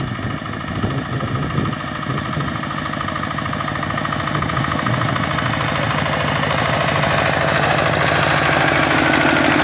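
Two-wheel walking tractor's single-cylinder diesel engine running with a fast, even chug while pulling a loaded trailer, growing steadily louder as it approaches.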